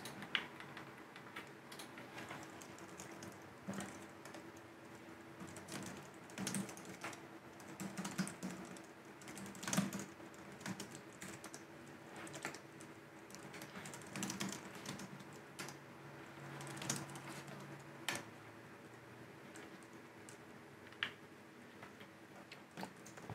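Computer keyboard typing, faint and irregular: scattered keystrokes and short runs of keys, over a low steady hum.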